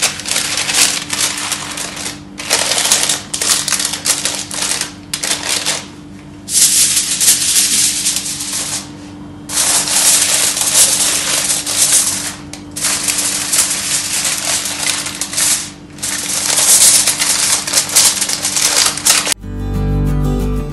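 Aluminium foil crinkling in repeated bursts with short pauses as it is handled over a metal baking tray, over a steady low hum. Acoustic guitar music comes in near the end.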